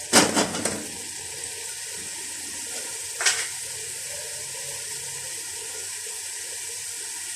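Grated onions sizzling gently in oil in a pot, sweating rather than frying, with a few scrapes of a spoon against the pot in the first second and one more about three seconds in.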